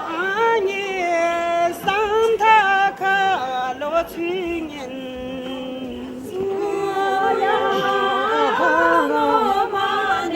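Voices singing without instruments, with long held notes that bend and slide in pitch.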